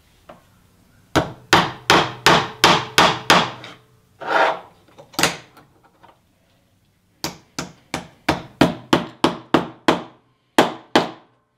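A hammer striking small nails into a wooden block, in two quick runs of about three to four blows a second with a pause and a few single blows between.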